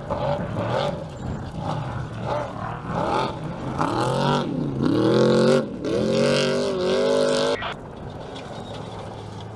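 Off-road race truck engines revving hard. The pitch climbs and falls again and again, loudest in the middle, then falls away suddenly near the end as the throttle comes off.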